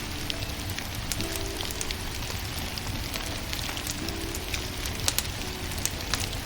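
Wood fire burning: a steady hiss with many small scattered crackles and pops. Faint soft music notes sound under it.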